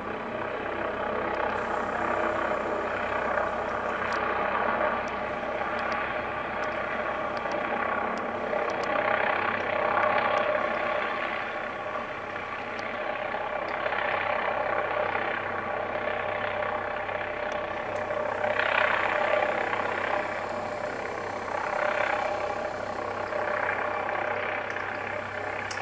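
McDonnell Douglas MD 900 Explorer helicopter hovering: its twin turbines and main rotor make a steady dense hum with whining tones, with no tail rotor because it is a NOTAR design. The sound swells and eases every few seconds.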